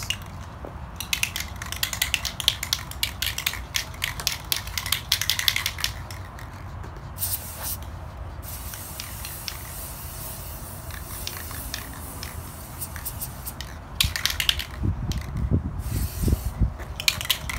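Aerosol spray can of Rust-Oleum mirror effect paint: first the mixing ball rattles quickly inside the can, then the nozzle gives a steady hiss of spray for several seconds. Near the end come more clicks and rattles, with wind buffeting the microphone.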